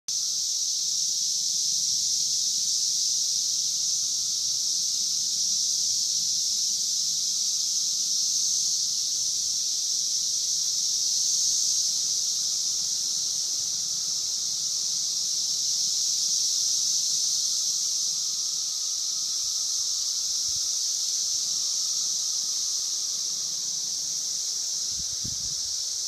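A chorus of 17-year periodical cicadas (Magicicada): a dense, steady, high-pitched drone of many males calling at once, without pauses. A few soft low thumps come near the end.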